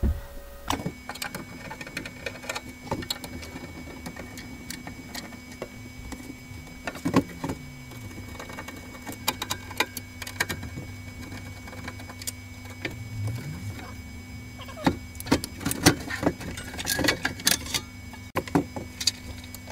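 A SAF Presto 185 welding inverter's case being opened: scattered clicks, knocks and scrapes of a screwdriver, screws and the sheet-metal cover being handled and lifted off, over a steady low hum. The clicks come thickest near the end.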